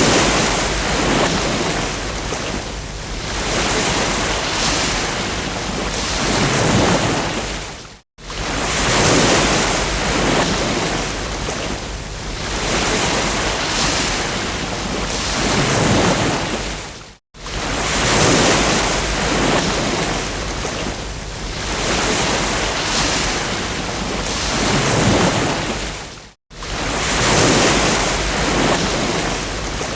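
Ocean surf: waves breaking and washing on a beach, swelling and falling every few seconds. The sound cuts out briefly three times, about every nine seconds.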